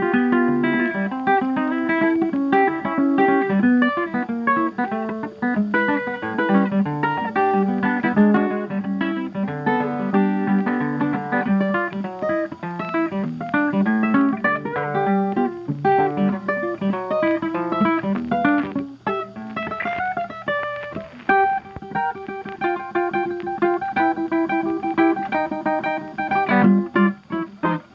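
Lively ragtime background music, a busy run of quick plucked or struck notes over a bouncing bass line.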